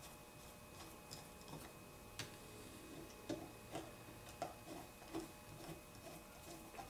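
Faint, irregular small metallic clicks and ticks of a screwdriver working screws into a Weber ICT carburetor body during reassembly, with a few sharper clicks in the middle.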